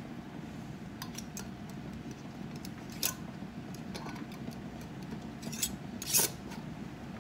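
Metal canning lid and screw band being put on a glass mason jar and twisted down by hand: a few light metallic clicks and scrapes, the loudest about three seconds in and just after six seconds, over a steady low hum.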